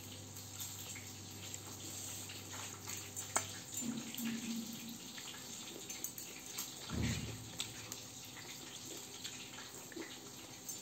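A person eating with her hands: faint chewing and mouth sounds, with a few light clicks, a short low hum about four seconds in and a soft thud about seven seconds in, over a steady faint hiss.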